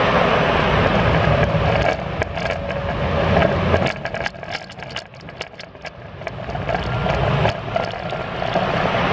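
Automated car-vending-tower lift carriage running with a steady mechanical whir while it carries the car. About four seconds in it drops away to a string of sharp clicks and ticks, and from about seven and a half seconds the whir builds up again.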